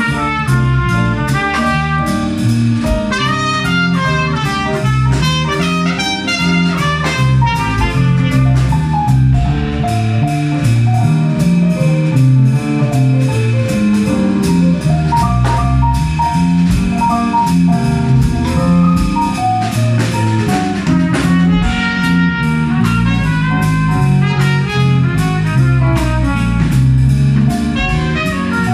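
Live jazz combo playing an instrumental passage: trumpet and electric keyboard over a drum kit with cymbals, with a stepping bass line underneath.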